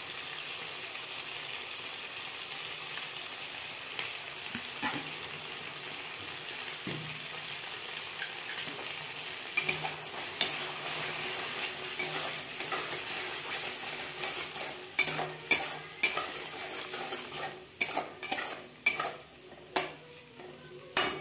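Tomatoes and spices frying in oil in a metal kadhai, with a steady sizzle. From about ten seconds in, a flat metal spatula stirs and scrapes the pan, with sharp clinks of metal on metal, loudest near the end.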